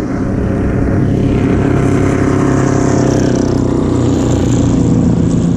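Racing car engines going past at speed. The sound swells over the first second and stays loud, with a slowly falling pitch as a car goes by.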